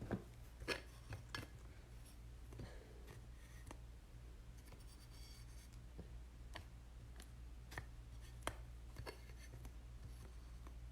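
Faint handling noise: scattered light clicks and rubbing as trading cards and their plastic holders are moved and set down, over a low steady electrical hum.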